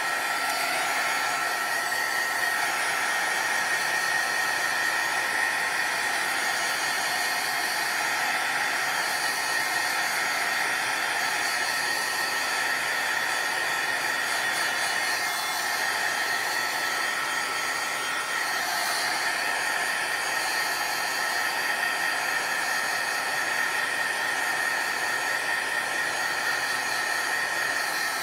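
Handheld craft heat tool running steadily, blowing hot air over wet watercolour paper to dry it. Its fan gives a constant hiss with a steady high whine.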